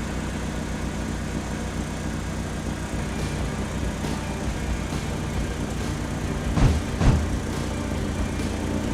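Vehicle engine running steadily at a low rumble, with two knocks about half a second apart near the end.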